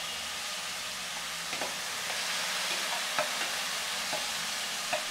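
Chopped yardlong beans sizzling steadily in a hot frying pan. A steel spoon scrapes and stirs them, with light clicks every second or so.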